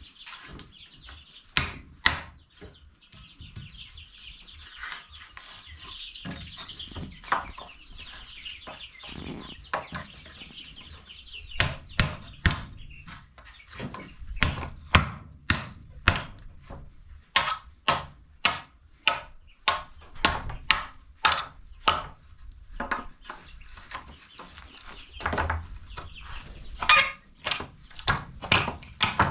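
Hammer blows, sharp and irregular, in runs of about one to two a second, mostly in the second half, while chickens cluck and chicks cheep.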